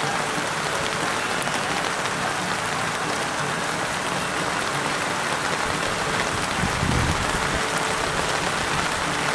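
Steady hiss of rain falling, with a brief dull low bump about seven seconds in.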